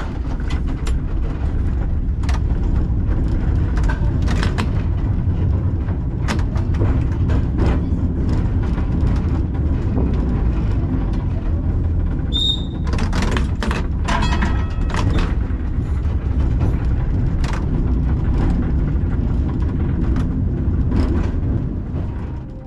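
Two-axle vintage tram running along the track, heard from the driver's cab: a steady low rumble from the wheels and running gear, with frequent clicks and knocks and one brief high tone a little over halfway.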